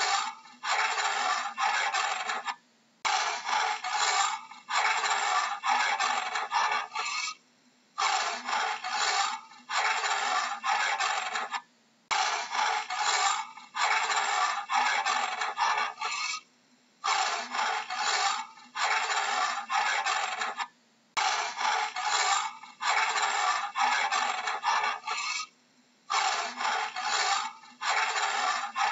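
Leopard giving its sawing call: runs of hoarse rasping strokes, each run lasting about three to four seconds, broken by short pauses and repeating roughly every four and a half seconds.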